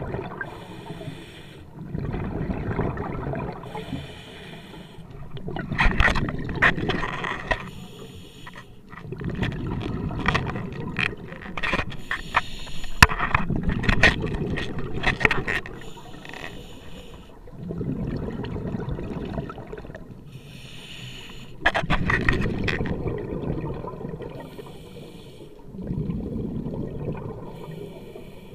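Scuba diver breathing through a regulator, heard underwater: a short hiss as the demand valve opens on each inhalation, then a longer rumbling, gurgling rush of exhaled bubbles. A breath about every four seconds.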